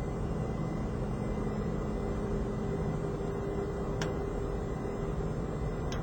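Steady rumble of airliner flight-deck noise in flight, with a faint steady hum under it. Two brief clicks sound about four seconds in and again near the end.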